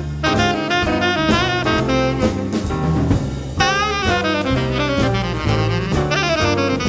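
Small jazz band playing hard bop: a lead horn plays a line of bending notes over stepped bass notes and drum-kit cymbal strokes.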